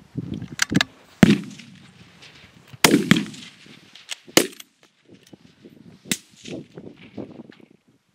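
Rifle shots on a firing line: about half a dozen sharp cracks at irregular intervals, the loudest a little over a second in and another near three seconds in, with fainter clicks between.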